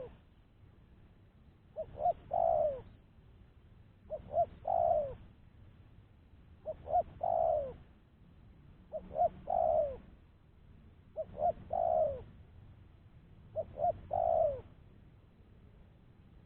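Spotted dove (tekukur) cooing: a phrase of two short notes and a longer falling note, repeated six times at a steady pace about every two and a half seconds.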